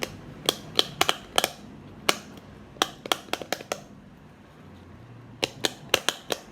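Pop-it fidget toy having its silicone bubbles pressed: a series of sharp pops in quick, uneven runs, with a pause of about a second and a half partway through.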